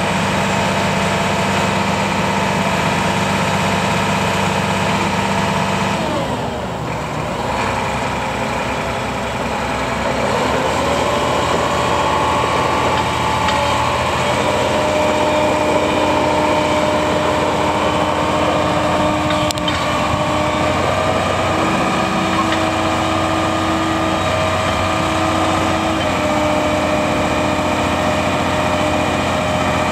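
John Deere 772GP motor grader's diesel engine running. Its pitch changes about six seconds in with a brief drop in loudness, then climbs around ten to twelve seconds in and holds at a higher, steady speed.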